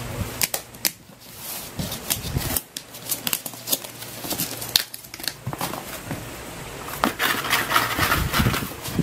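Cardboard mailer box being picked and pried at by hand: fingernails scraping, tapping and rubbing on the cardboard flaps, with a denser scratchy rustle about seven seconds in.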